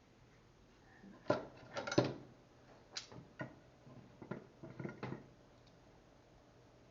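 Metal tools being handled: irregular sharp knocks and clinks, loudest about two seconds in, as a small angle grinder and hand tools are picked up and set down to change its disc.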